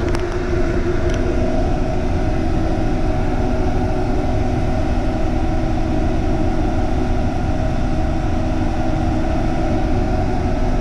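Steady mechanical drone of running HVAC plant equipment, an even hum with several fixed tones. Two light clicks about a second apart near the start.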